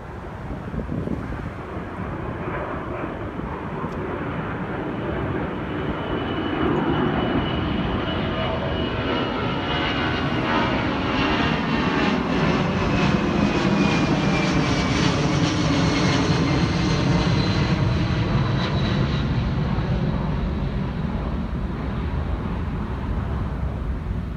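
Twin-engine jet airliner climbing out after takeoff and passing overhead. The engine roar builds to its loudest a little past the middle and eases off somewhat near the end, while a high whine slides down in pitch as the jet goes past.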